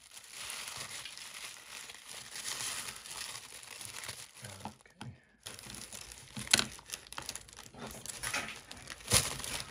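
Tissue paper crinkling and rustling as it is handled and pulled out of a box, with a short lull about halfway. A couple of sharp knocks come in the second half.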